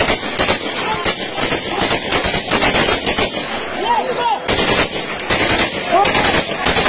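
Automatic weapons fired into the air in celebration, in rapid, near-continuous volleys of sharp cracks.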